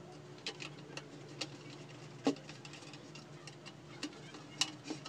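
Screwdriver turning a small screw to fasten a spring-clip speaker terminal to an amplifier cabinet's back panel: scattered light clicks and ticks, the loudest about two seconds in and again near the end, over a faint steady hum.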